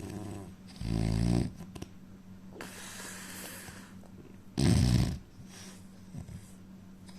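A man snoring: two loud snores, about a second in and about four and a half seconds in, with a breathy exhale between them.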